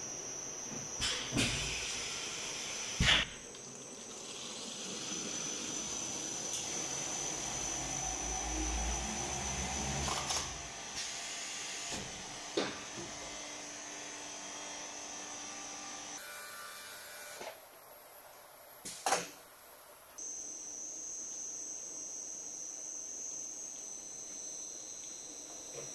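Automatic antiseptic filling and capping line running: a steady high-pitched whine with a stretch of hiss, and scattered sharp clicks and knocks from the machinery, loudest about three seconds in and again near nineteen seconds.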